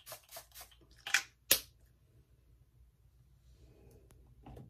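Two short hissing sprays from a facial mist spray bottle, a little under half a second apart, after a run of quick light taps, about six a second, in the first second.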